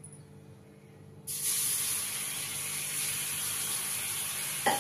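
Water poured onto a hot tawa (flat griddle), hissing and sizzling as it flashes to steam. The hiss starts suddenly about a second in and then holds steady.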